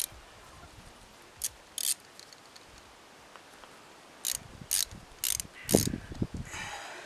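Ratchet wrench clicking in short bursts as it loosens the bolts of a Honda Shadow's engine side cover to get at the oil filter: two bursts in the first two seconds, then four in quicker succession past the middle, the last the loudest.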